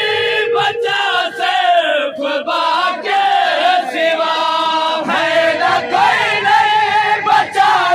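A crowd of men chanting a noha, a Muharram mourning lament, together in loud unison, the sung lines swelling and falling.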